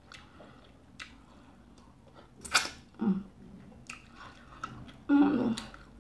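Close-up eating sounds of someone eating fufu and nsala soup by hand: quiet wet chewing and small mouth clicks, with a sharp, louder mouth noise about two and a half seconds in. A brief hum comes near the end.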